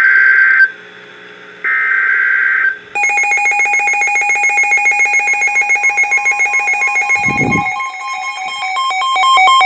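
Emergency Alert System data bursts from NOAA Weather Radio: two short screeching bursts of digital tones, then an electronic alert tone pulsing rapidly in several pitches. The tones announce an incoming warning.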